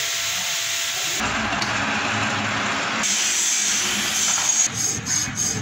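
Metal-machining noise from workshop machine tools, changing abruptly about a second in and again about three seconds in, with a few sharp clicks near the end.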